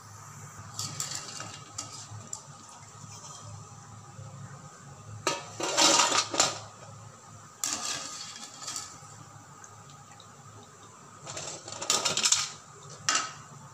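Steel slotted ladle and colander clattering against the aluminium kadai in several bursts, loudest about six seconds in, as fried murukku are lifted out of the oil and tipped into the colander. The oil's sizzling has died down, which is the sign that the murukku are fully fried.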